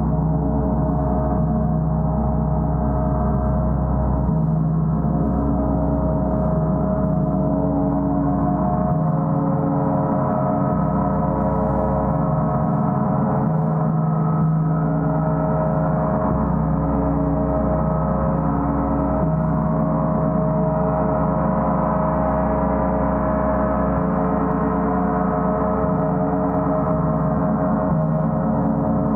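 Gong played continuously: a dense, steady wash of many overlapping ringing tones, with the deep low hum swelling and fading every few seconds.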